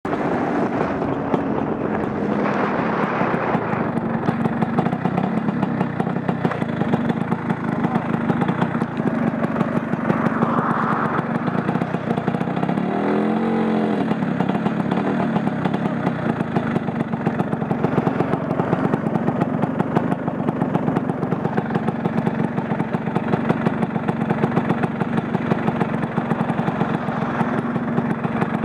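Scooter engine running steadily under way, with a rapid even beat of exhaust pulses. About halfway through there is one brief rise and fall in pitch.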